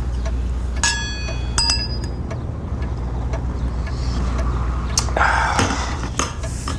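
Two glass champagne flutes clinked together twice in a toast, each clink ringing briefly at a bright pitch. About five seconds in comes a duller knock of glass on a tabletop.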